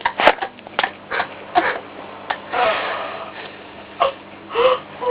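Vizsla puppy whimpering and whining in short bursts, with a longer breathy sound about two and a half seconds in: a restless puppy that cannot settle to sleep.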